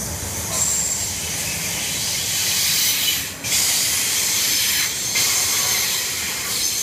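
Container freight train rolling past at close range: a steady loud hiss of wagon wheels on the rails, with a brief high squeal about half a second in. The noise drops briefly twice.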